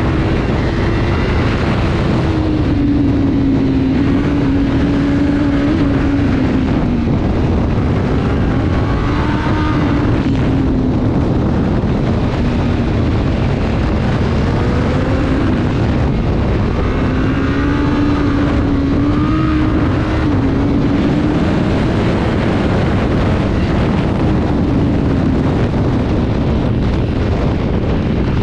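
Vehicle engine running under way, its pitch rising and falling several times over a steady rush of road and wind noise.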